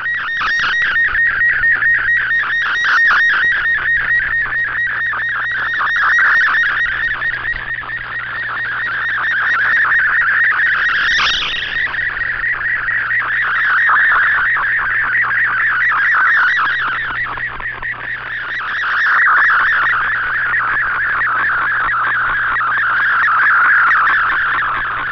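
Digital picture signal from a shortwave broadcast, an MFSK image transmission decoded in Fldigi and heard through an Icom IC-R8600 receiver: a fast-rippling, warbling tone in the upper-middle range whose pitch shifts with the picture being sent. It swells and fades every few seconds over a faint steady low hum.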